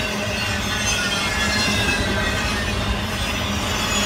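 Intermodal freight train of truck trailers on flatcars rolling past: a steady rumble of wheels on rail, with thin high squeals from the wheels drifting slowly in pitch.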